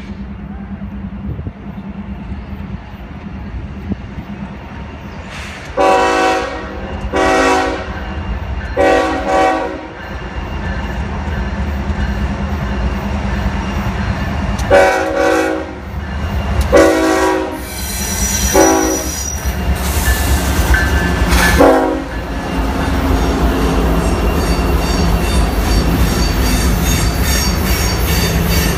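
Norfolk Southern diesel freight locomotives rumbling steadily as they approach, sounding the air horn in two series of blasts: three, then four, the third of the four short. Then the freight cars roll past with a steady rumble, wheels clicking over the rails and squealing faintly on the curve.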